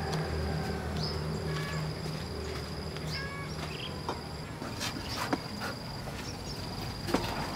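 An insect's high, steady trill, breaking off and starting again every second or two, over a low steady rumble, with a few faint clicks.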